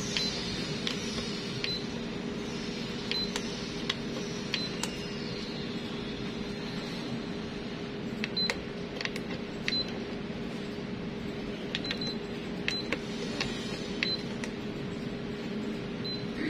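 Control-panel key beeps and button clicks on a Canon imageRUNNER ADVANCE 4235i copier: about ten short high beeps, unevenly spaced, as keys are pressed to enter service mode. Under them runs the steady hum of the machine.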